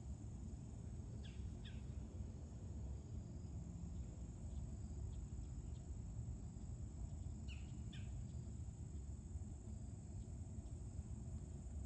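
Open-field ambience: a steady, thin, high-pitched insect drone over a low rumble. A bird gives short paired chirps about a second in, again about seven and a half seconds in, and once more at the very end.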